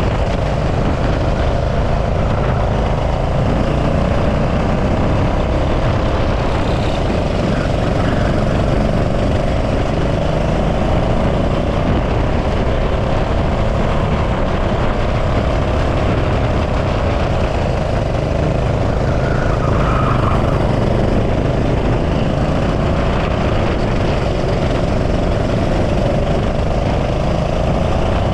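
Go-kart engine running at speed, its pitch drifting gently up and down, over a heavy low rush of wind on the microphone.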